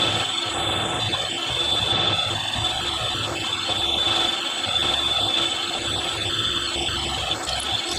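Milling machine running with an end mill cutting a slot in metal: a steady mechanical noise with a constant high-pitched whine over a rough low rumble.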